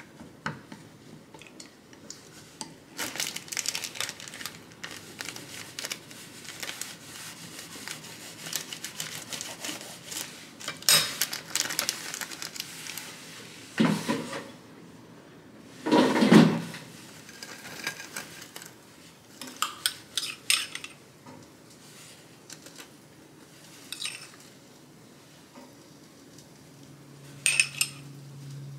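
Clinking and clattering of kitchen utensils and dishes: chopsticks beating eggs in a glass bowl and scattered clicks of cutlery. Two louder knocks come about halfway through, and a metal spoon clinks against a glass near the end.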